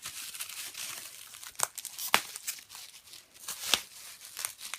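Packaging crinkling and rustling as a box of CD albums is unpacked and the albums are handled, with a few sharp clicks and knocks among the crinkles.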